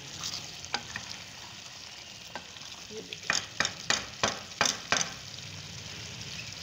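Mutton and tomato curry sizzling in ghee in a karahi while it is stirred, at the frying stage where the ghee has separated on top and the last of the water is cooking off. A spoon knocks against the pan about six times in quick succession, roughly three a second, just past the middle.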